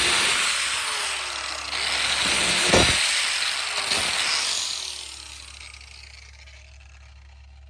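A power tool running loud, then spinning down and fading over a few seconds, with a single sharp knock about three seconds in.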